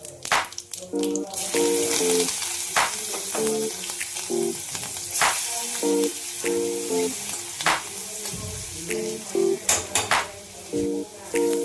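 Food frying in a pan: a steady sizzle, with scattered sharp clicks and taps from stirring.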